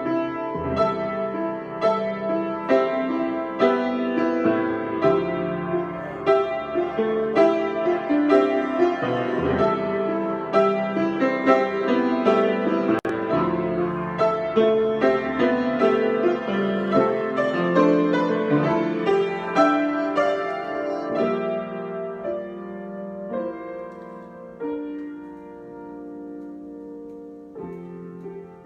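Solo piano improvisation, many notes and chords played densely, then thinning out and growing quieter after about twenty seconds.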